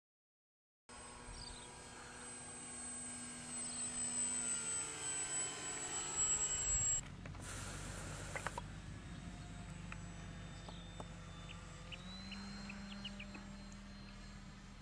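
Electric motors and propellers of Parkzone Albatros and Durafly SE5a RC foam biplanes whining in flight, the pitch sliding slowly up and down as the planes pass. About a second of silence comes first, and a short burst of rushing noise comes about seven seconds in.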